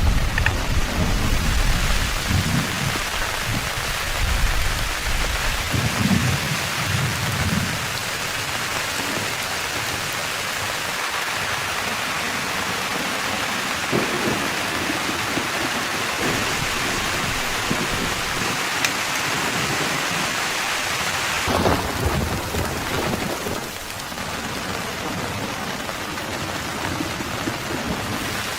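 Heavy rain pouring steadily, with a low rumble of thunder dying away over the first few seconds.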